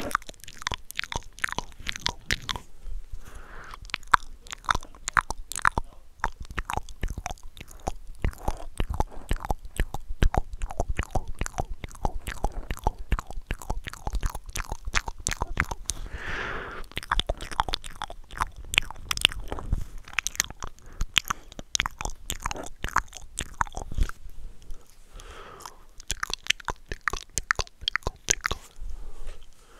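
Wet mouth sounds made into cupped hands held against a microphone: a dense, continuous run of tongue and lip clicks and smacks, with a few brief breathy hisses in between.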